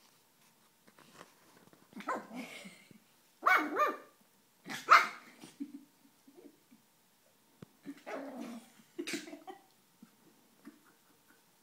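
Eight-week-old miniature schnauzer puppy barking in play, about five short barks spread out with pauses between them, the loudest two in the middle.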